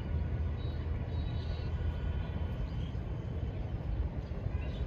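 Steady low outdoor rumble with a few faint, short high chirps.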